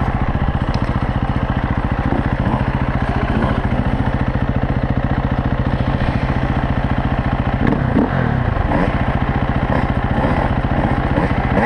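Dirt bike engine idling steadily close to the microphone, with a slight change in its note about two thirds of the way through.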